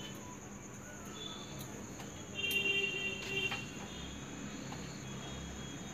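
Crickets chirping steadily, with a short ringing clatter about two and a half seconds in.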